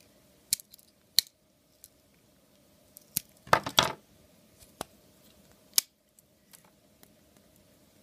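Swiss Army knives being handled: scattered metallic clicks and taps from a Victorinox Pioneer Alox with aluminium scales and a red-handled Victorinox knife knocking together and against the wooden table, with a short rattly cluster of clicks about three and a half seconds in.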